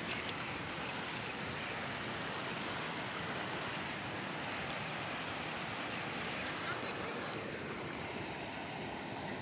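Muddy floodwater rushing steadily down a stream channel, water pouring out of a burst earthen reservoir dam after heavy rain.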